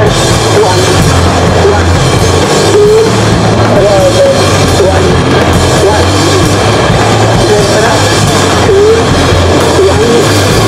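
Loud, harsh punk rock from a full band with a drum kit, dense and heavily compressed.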